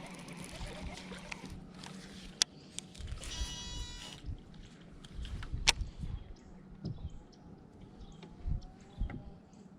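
Small electric trolling motor humming steadily, then going quiet about a second and a half in. About three and a half seconds in there is a short bleat-like call, followed by scattered sharp clicks and soft low knocks.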